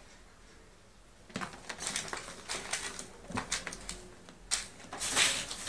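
A kitten's claws scratching and scrabbling on a scratching board as it climbs it: a quick, irregular run of scratches starting about a second in, loudest near the end.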